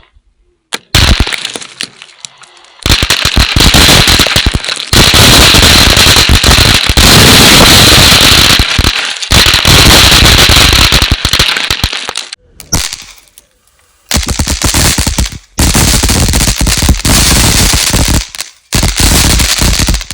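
Small 'pop pop' firecrackers going off in a dense, rapid crackle of many overlapping bangs. The crackling runs for several seconds at a time, with a few short breaks.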